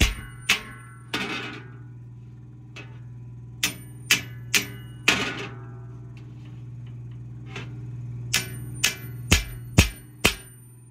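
Hammer strokes on the steel plate of a large circular sawmill blade, each strike followed by a short metallic ring. There are three groups: three blows, a pause, four blows, then five near the end, about two a second. This is saw hammering, working the plate where the sawyer judges it needs hitting.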